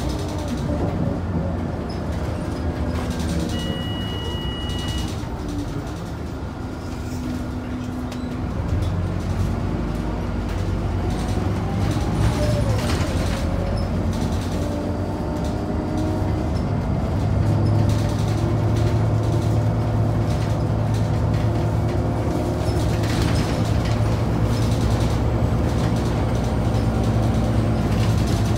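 Scania DC9 9-litre six-cylinder diesel of a Scania K94UB bus running under way with its ZF automatic gearbox, the engine note gliding up and down as it pulls. The rumble grows louder about nine seconds in and again about seventeen seconds in. A short electronic beep sounds about four seconds in.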